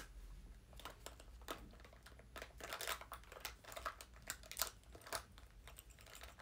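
Small makeup items and their packaging being handled: faint, irregular crinkling, rustling and small plastic clicks, starting with one sharp click.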